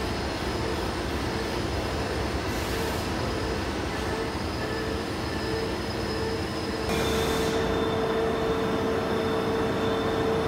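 CNC lathe running with its spindle turning the steel bar at about 636 rpm, a steady machine noise with a faint tone. About seven seconds in, a short hiss is heard and the sound gets louder, with a steady mid whine and a thin high whine, as coolant sprays and the indexable drill starts cutting into the bar face.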